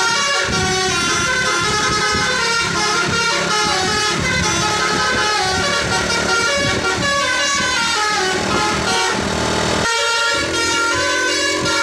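A bus's basuri telolet horn, a set of air trumpets, playing a long, continuous melody of shifting notes with several tones sounding at once. About ten seconds in the tune changes abruptly.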